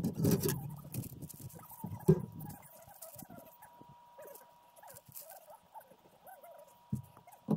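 Scattered knocks and rustling from PVC drain pipe being handled and fitted, with a sharp knock about two seconds in and two more near the end. A faint steady tone runs through the middle.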